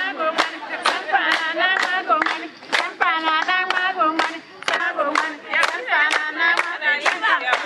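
Several voices singing together over steady hand claps, about two claps a second, accompanying a dance.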